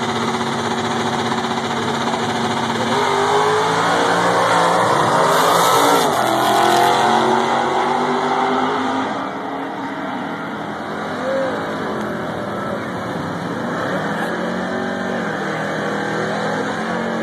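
Two drag-racing cars' engines, held at steady revs for the first few seconds, then accelerating hard down the strip from about three seconds in. The sound is loudest a few seconds later, then eases as the cars pull away, and rising and falling engine sound picks up again near the end.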